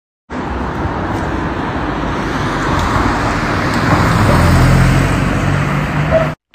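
Road traffic on a city street: a steady rush of passing vehicles with a motor vehicle's low engine hum growing louder in the second half, cutting off suddenly near the end.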